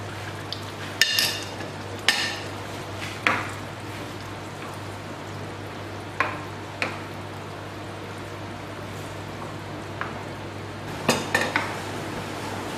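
A plastic ladle stirring a thick beef-and-potato curry in a pot, knocking sharply against the pot now and then: about ten knocks at irregular spacing, several around one to three seconds in and a quick cluster near the end, over a steady low hum.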